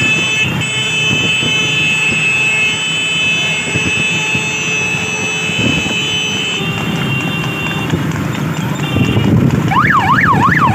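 Electronic siren sounding over vehicle running noise. It holds several steady high tones, then near the end switches to a fast yelp that rises and falls about three times a second.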